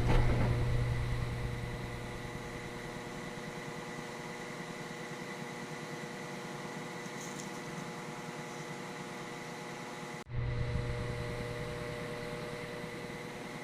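4.2L Vortec inline-six engine running at idle with a steady hum. It is louder at first and settles over a couple of seconds. About ten seconds in the sound cuts off abruptly, returns louder and settles again.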